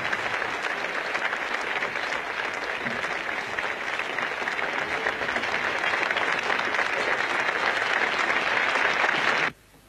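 Large crowd applauding steadily; the applause cuts off suddenly near the end.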